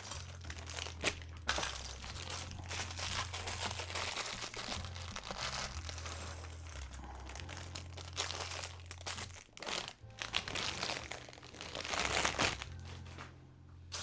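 Plastic LEGO parts bag crinkling as it is handled and opened, with irregular rustles, over soft background music with a steady bass line.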